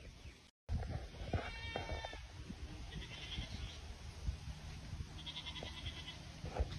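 A few short animal calls over a low rumble: one pitched cry about a second and a half in, then two higher, rapidly pulsing calls a couple of seconds apart. The sound drops out for a moment near the start.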